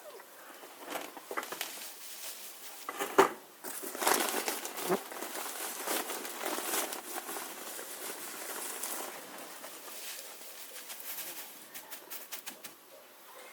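Nest-box bedding rustling and crinkling as it is handled and spread, with scattered clicks and a sharp knock about three seconds in.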